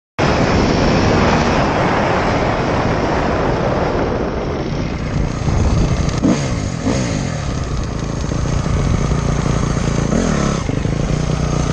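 Off-road dirt bike engines running at trail speed, the loudest being the helmet-camera rider's own bike, with the revs rising and falling several times as the throttle is worked. The sound cuts in abruptly just after the start.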